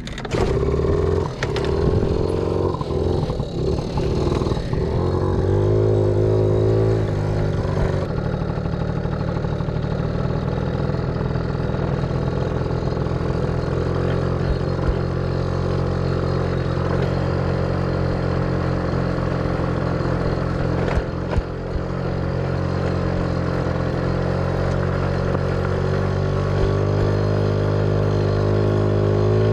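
Honda Motocompo's small two-stroke engine pulling away and riding along: its pitch climbs and dips for the first several seconds, then holds at a steady cruising note, easing off briefly about two-thirds of the way through.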